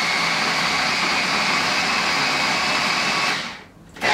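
Small push-top electric food chopper running steadily with a motor whine as it blends coconut yogurt with salt and vinegar. The motor cuts out near the end for about half a second, then starts again.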